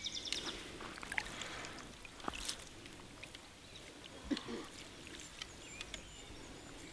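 Faint water sloshing and trickling with a few small splashes: a mirror carp being held in the shallow margin and released.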